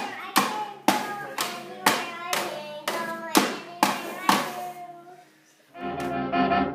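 A toddler banging on a toy drum kit with a small cymbal: about ten sharp hits, roughly two a second, each ringing out briefly. The hits stop about four and a half seconds in, and background music comes in near the end.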